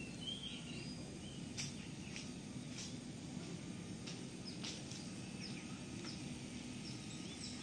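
Outdoor morning ambience: birds giving short chirps, several in the first second and a half and scattered sharp calls after that, over a steady low background rumble.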